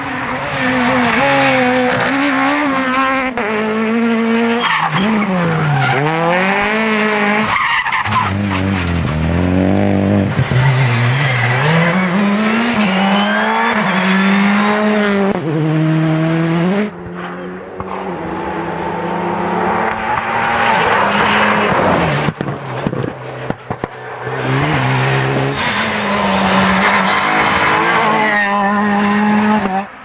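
Rally cars at racing speed, engines revving hard and dropping through gear changes as they pass one after another. The sound changes abruptly several times as one car gives way to the next.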